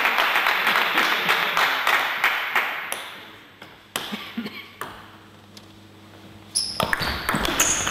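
Spectators' applause fading away over the first few seconds. Then two sharp taps of a table tennis ball, and near the end a quick rally of the ball clicking off the table and the bats.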